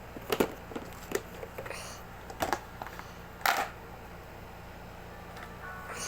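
Handling noises, likely hands on the slime kit's packaging: four short clicks and crinkles, the loudest about three and a half seconds in, over a steady low hum.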